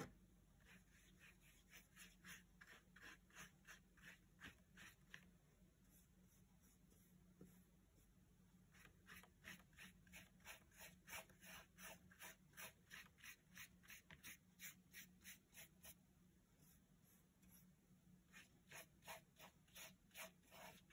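Paintbrush scrubbing back and forth on paper as watercolour is brushed on, a faint rhythmic swish of about three strokes a second. The strokes come in three runs, pausing twice.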